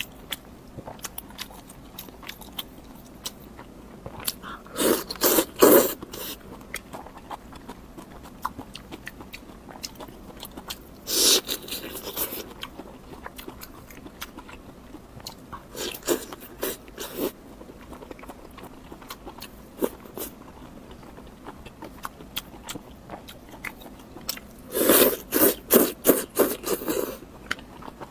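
Close-miked eating sounds: a person biting and chewing crunchy food in four loud bouts of crackly crunching, with small scattered mouth clicks between them.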